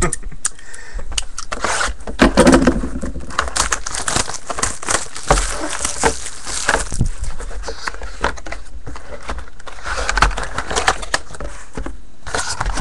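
Trading cards being handled and slid out one by one, with frequent sharp clicks and scraping rustles.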